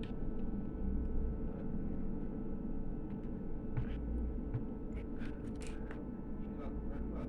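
Steady low background hum with a few faint, short clicks and taps.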